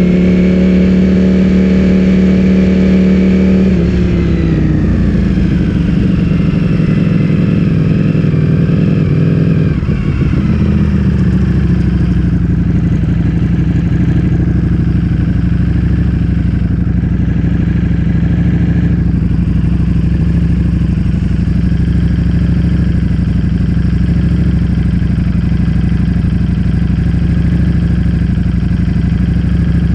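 Ducati Streetfighter V4S's 1103 cc V4 engine running through an Akrapovic full-system exhaust. It holds a fast, steady speed for about four seconds, then the revs sink slowly over several seconds and settle into a steady idle.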